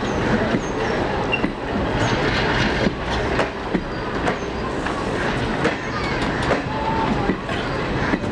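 Passenger train coaches rolling on the track, with irregular clacks of the wheels over rail joints and brief high squeals from the wheels, over a steady rumble.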